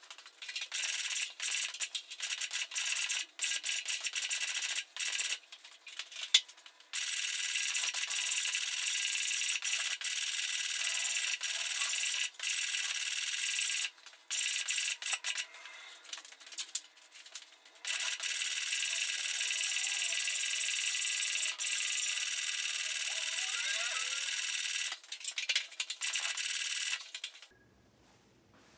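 Airless paint spray gun hissing in bursts as the trigger is squeezed and released, some bursts lasting several seconds with short breaks between; it stops shortly before the end.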